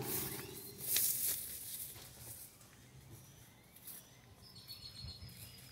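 Faint outdoor ambience of birds chirping and insects, with a brief rustle or knock about a second in.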